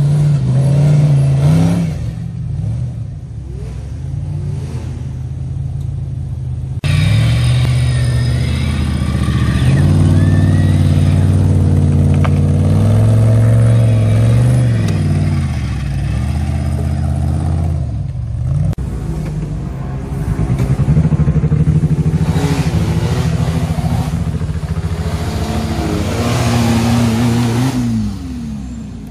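Off-road race buggy engines revving hard under load on a steep muddy hill climb, their pitch surging up and down. The sound changes abruptly twice as it switches from one buggy to the next.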